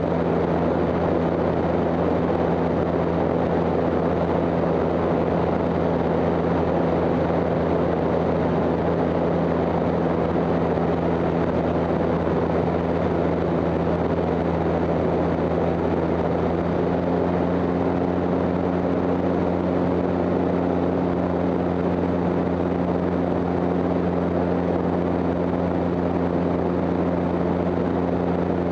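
Twin-engine seaplane in flight: the steady drone of its engines and propellers over an even rush of air. A little over halfway through, the propeller tone shifts slightly higher.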